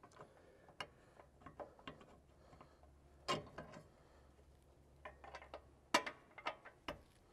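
Light metal clicks and knocks from the steel spare-tire mount bracket sliding in and out along the carrier arm on its still-loose carriage bolts, with louder knocks about three and six seconds in.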